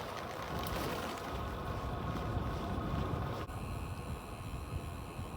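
Wind rushing over the microphone and tyres running on the road while riding a bicycle, a steady rumbling hiss that changes abruptly about three and a half seconds in.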